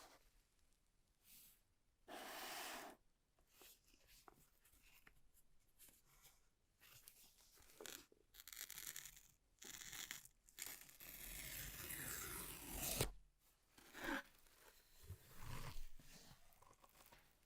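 Faint tearing, crinkling and rustling of packaging as an iPhone 13 Pro box is opened. Short scrapes and rustles come in irregular bursts, with one longer, drawn-out tear about two-thirds of the way through.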